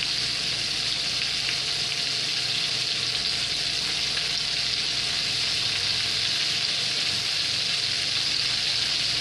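Floured chicken strips deep-frying in a skillet of hot grease, a steady sizzle.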